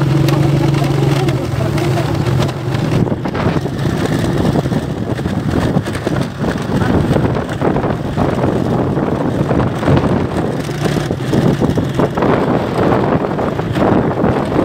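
A vehicle on the move: a steady engine hum that fades after about three seconds, under heavy wind noise buffeting the microphone.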